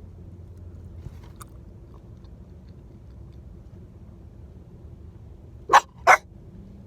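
Quiet chewing and eating over a low, steady background. Near the end come two short, loud sharp sounds about a third of a second apart.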